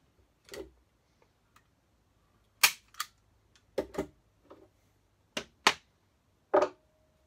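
A hand staple gun firing staples through grill cloth into a wooden speaker baffle board: about nine sharp snaps of uneven loudness, several in quick pairs. The last leaves a brief metallic ring.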